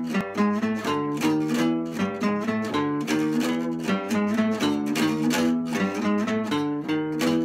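Acoustic guitar and acoustic bass guitar playing an instrumental piece together, a quick run of plucked notes several times a second over the bass, with the bass plucked fingerstyle.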